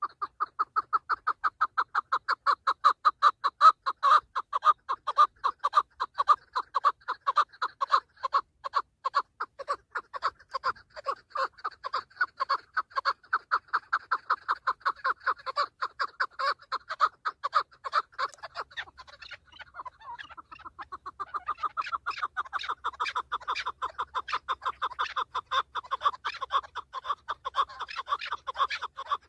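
Chukar partridge calling: a long, fast run of repeated clucking notes. The run breaks briefly about two-thirds of the way through, then starts again.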